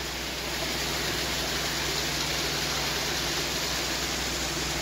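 Steady hiss over a low, even mechanical hum, typical of the air compressor running for a sandblasting setup before blasting starts.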